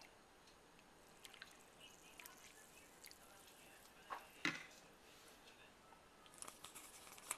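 Near silence with scattered faint clicks and taps, and a couple of sharper knocks about four seconds in.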